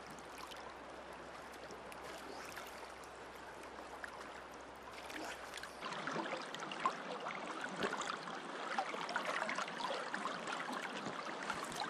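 River water running: a steady rushing and trickling that grows a little louder about halfway through.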